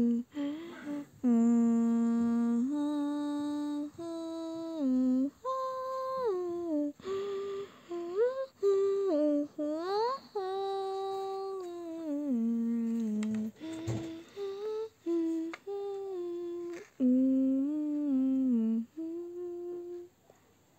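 A person humming a tune without words, in held notes that step up and down, with short breaks between phrases and a sliding rise about ten seconds in.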